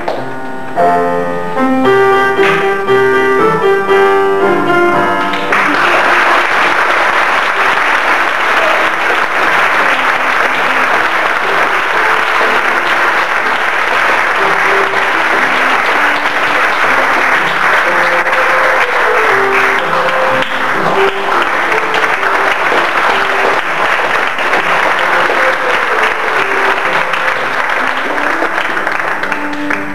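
A piano plays for about five seconds, then an audience breaks into steady applause that lasts the rest of the time, with the piano still faintly heard beneath the clapping.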